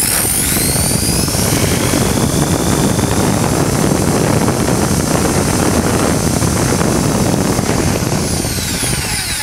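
Makita M8101 corded hammer drill running loudly at speed while cutting a countersink. Its motor whine rises as it spins up at the start and falls away as it winds down near the end.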